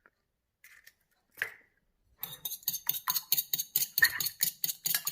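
A fork beating an egg in a small bowl: a couple of light clinks, then from about two seconds in a fast, even run of clicks, about six a second, as the fork hits the bowl.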